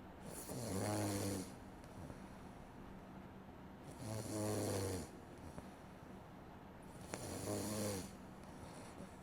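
A sleeping person snoring: three snores about three and a half seconds apart, each a low pitched snore lasting about a second, over a faint steady hum.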